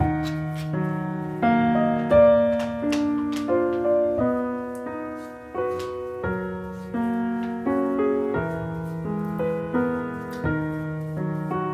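Background piano music: a slow melody of single notes and chords, each note struck and fading.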